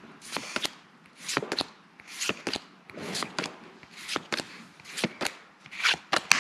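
Pokémon trading cards being slid off a stack one at a time. Each card gives a papery swish and a snap, in pairs about once a second.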